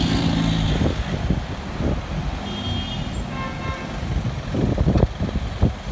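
Street traffic: car engines running in slow-moving city traffic, with low bumps on the microphone as the phone is carried.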